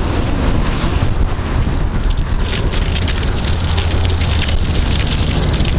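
Wind buffeting the microphone of a bicycle riding into a strong wind, a steady low rumble, over the fine hiss and crackle of tyres rolling on packed snow.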